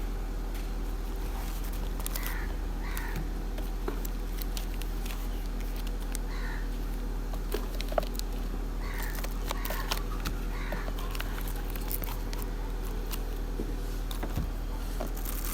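Birds calling in short groups a few times, over a steady low hum and scattered small clicks and taps.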